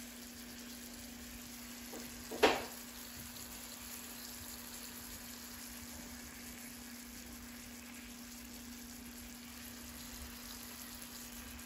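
Pork chops sizzling in hot oil in a frying pan: a soft, steady frying crackle over a low hum, with one brief, much louder burst about two and a half seconds in.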